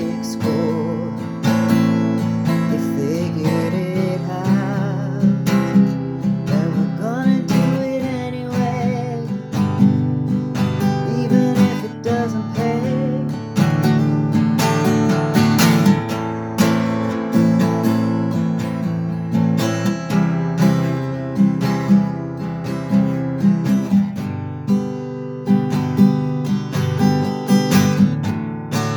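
Acoustic guitar strummed in a steady rhythm, an instrumental passage cycling through the chords Am, C, G and D in a drop tuning with a capo.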